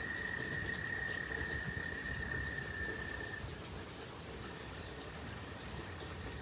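Steady rain, with scattered small ticks of drops and a thin steady high-pitched tone that fades out about halfway through.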